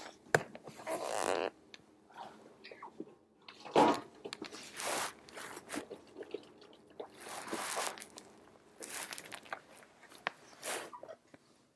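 Bursts of rustling and crinkling every second or two, with small clicks and taps between them: a Congo African grey parrot rummaging in a trash can.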